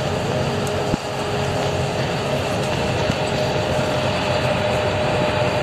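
Passenger bus running down the road, heard from inside the cabin: steady engine and road noise, with a single sharp knock about a second in.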